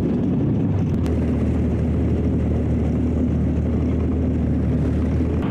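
Military vehicle's engine running steadily while driving, a low even hum that holds its pitch.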